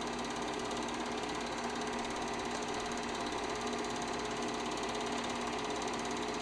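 Film projector running: a steady, fast mechanical clatter with a constant hum underneath.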